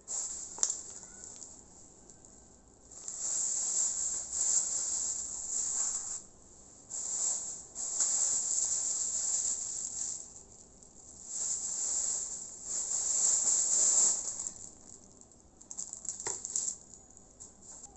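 Thin plastic grocery bags rustling and crinkling in bursts of a few seconds as they are handled, with a sharp click or two in between.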